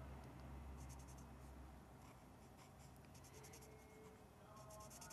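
Faint scratching of an alcohol marker's nib stroking back and forth across paper as colour is laid into a petal, in a few short spells of strokes.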